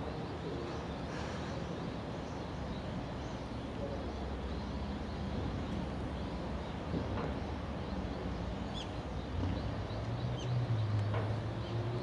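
Diesel railcar engine running with a steady low hum that grows louder, with a stronger low note, about nine and a half seconds in. A few faint bird chirps sound over it.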